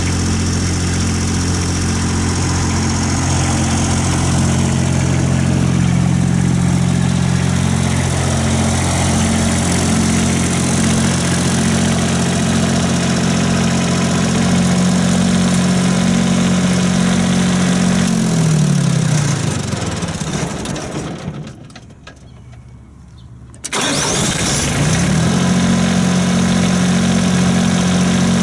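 Towable light tower's diesel engine running steadily, then switched off about 18 seconds in and winding down to a stop. A couple of seconds later it is restarted, catches at once and rises back to a steady run.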